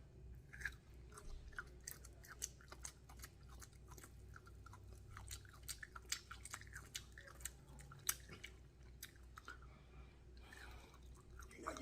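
Faint close-up chewing of soft meat, with many small, irregular wet mouth clicks and smacks.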